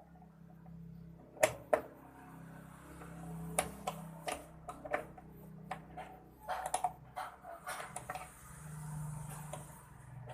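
Sharp clicks and knocks of a screwdriver working on the screws and metal panel of an LG front-loading washing machine as the panel is opened, over a low steady hum.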